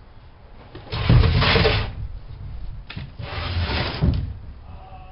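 Two rasping scrapes of something being slid or rubbed during handwork, each about a second long: one about a second in, the second around three and a half seconds in.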